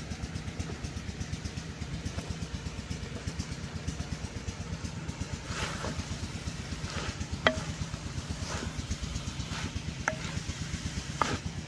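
An engine runs steadily in the background with a rapid low thudding. From about halfway in, a wooden spoon knocks and scrapes against the clay cooking pot several times as chopped radish and spinach are stirred into the masala.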